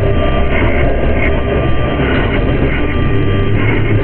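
Harsh noise music: a loud, dense, unbroken wash of distorted noise, heaviest in the bass, with a faint thin steady tone above it.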